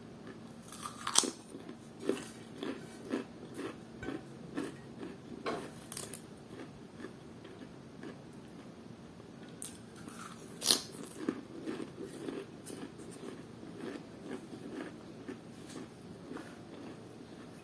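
A person biting and chewing crunchy, well-toasted food close to the microphone. Two loud crunching bites come about a second in and again about ten seconds in, with steady chewing and smaller crunches in between.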